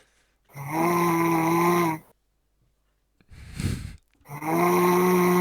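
A mobile phone vibrating with an incoming call: two steady buzzes of about a second and a half each, a couple of seconds apart. Between them is one short rasping snore from the sleeper.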